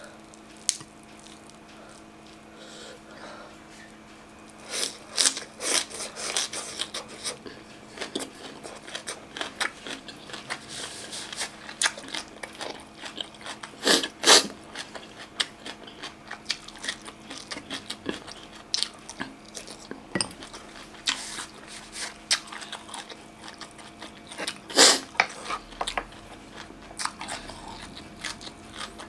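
Close-miked eating: crunchy bites and chewing of boiled fiddlehead fern greens, a rapid run of crisp crackling clicks. The crunching starts about five seconds in, after a quiet start, and is loudest around the middle and again near the end.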